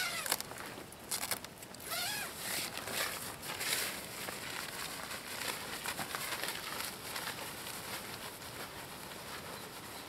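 Nylon tent fabric rustling and crinkling as it is handled, busiest over the first four seconds and then quieter and steadier. A few short rising chirps sound near the start and again between two and four seconds in.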